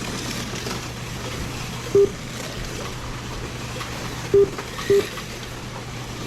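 Short electronic beeps from a race timing system, three of them at about 2, 4.4 and 5 seconds in, marking cars crossing the lap line. Under them runs a steady low engine drone from dubbed-in Legends race car sound.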